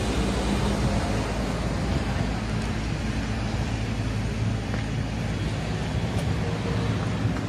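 Steady low engine rumble of road traffic or a running machine, with an even hum and no distinct events.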